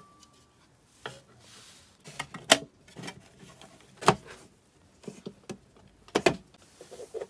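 Computer power supply being handled during reassembly: a scatter of sharp clicks and knocks from its sheet-metal case and cover, the loudest about two and a half and four seconds in.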